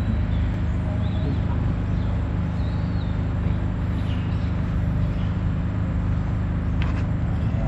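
Steady low drone, like a motor running nearby, with a few faint high chirps over it.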